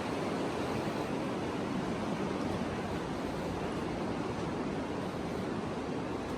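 Steady rushing noise of water flowing through the cave, an even hiss without breaks or separate events.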